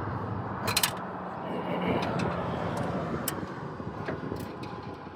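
A passing motor vehicle's engine and tyre noise, fading away, with a few sharp clicks, the loudest just under a second in.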